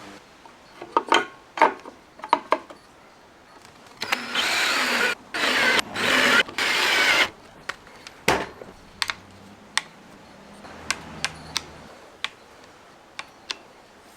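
Workshop tool and handling sounds on the wooden rifle stock: a few sharp clicks and knocks, then about three seconds of loud rubbing or tool noise in four short strokes, then scattered light taps and clicks.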